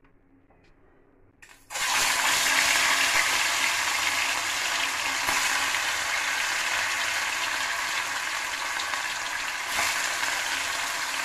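Katla fish steaks frying in hot mustard oil in an aluminium kadai: a loud, steady sizzle that starts suddenly about two seconds in, after a quiet opening.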